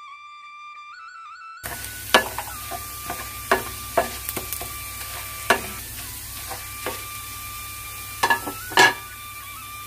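Shallots and curry leaves sizzling in hot coconut oil while a wooden spatula stirs them and knocks sharply against the pan a dozen or so times, the loudest knocks near the end. Background music with a sustained flute-like tone runs throughout; for the first second and a half it plays alone.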